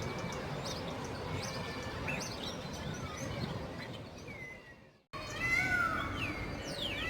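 Many birds chirping and calling over a steady background hiss. About five seconds in, the sound fades out and cuts back in with louder falling whistled calls.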